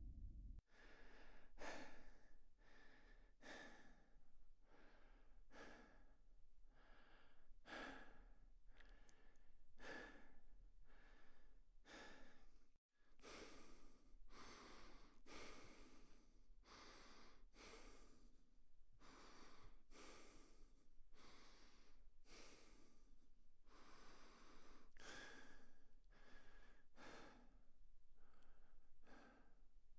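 A person breathing fast and hard, short quick breaths about one and a half a second, faint, with a momentary break about 13 seconds in.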